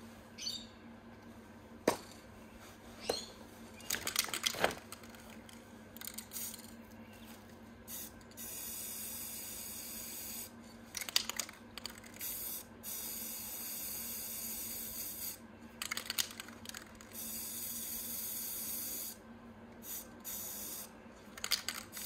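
Aerosol can of satin silver spray paint hissing in several long bursts of two to four seconds each, sprayed into a plate of sand. A few sharp clicks and rattles come in the first few seconds, before the spraying starts.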